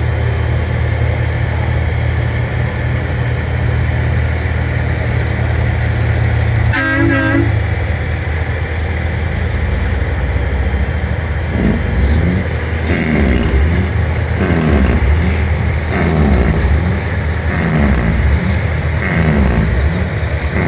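Big-rig diesel engines running steadily as trucks pass, with one short truck horn blast about seven seconds in.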